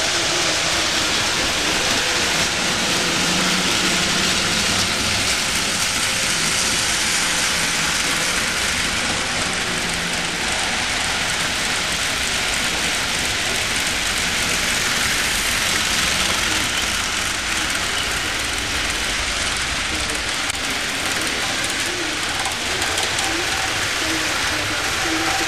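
Model trains running on a home layout: a steady hissing rumble of wheels rolling on the track and the locomotives' motors, with no breaks or distinct knocks.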